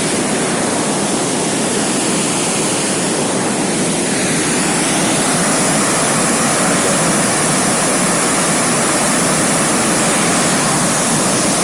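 River water pouring over a concrete weir and churning white below it: a loud, steady rush that grows a little louder about five seconds in.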